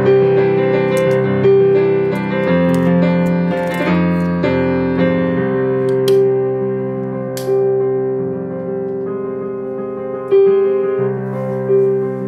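Background piano music, a slow piece with sustained chords and notes changing every second or so.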